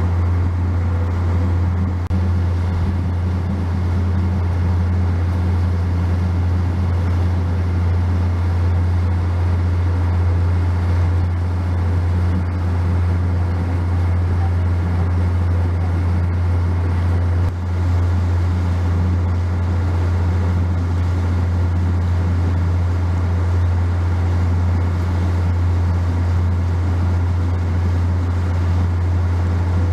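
Steady low drone of an excursion boat's engine heard on board while cruising, over a wash of water and wind noise.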